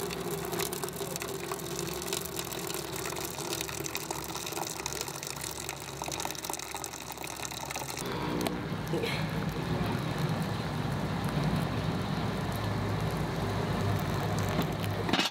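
Hot water poured in a steady stream from a kettle into a metal teapot of loose tea, splashing as it fills. The sound of the pour shifts about halfway through.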